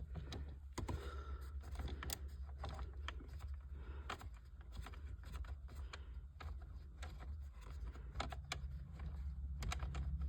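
Irregular light clicks and taps of a hand tool working screws out of the plastic dash trim around a car stereo, over a steady low rumble.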